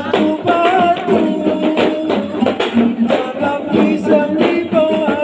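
Traditional Kei gambus music: a voice singing a wavering melody over a steady beat of hand percussion.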